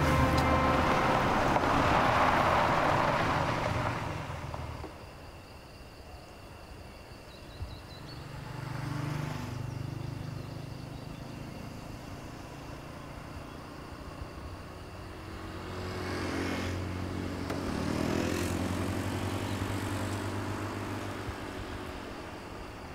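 Motorcycles passing on a road, twice: about eight seconds in and again from about sixteen seconds, each engine swelling as it nears and fading as it goes by. At the start, a louder stretch of vehicle noise dies away within the first few seconds.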